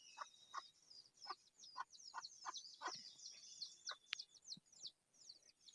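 Faint chirping of small birds: many short, quick high chirps, with a few lower short calls mixed in.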